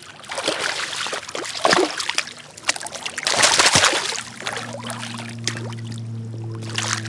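Hooked smallmouth bass thrashing and splashing at the surface of a shallow river as it is grabbed by hand, with the biggest splash a little past halfway. Background music with steady held notes comes in just after the splashing.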